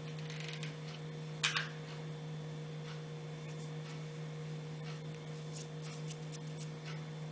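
Quiet handling noises from hot-gluing fabric pieces onto a wreath: a few light ticks and one brief sharp click or rustle about one and a half seconds in, over a steady low hum.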